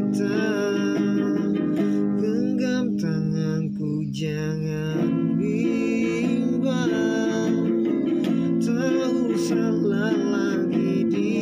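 A man singing a slow song while accompanying himself on a nylon-string classical guitar.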